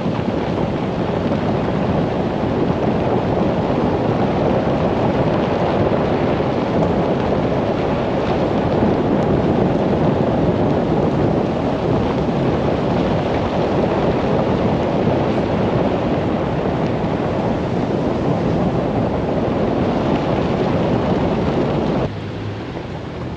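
Steady rushing noise of moving water and wind, dropping suddenly to a quieter level near the end.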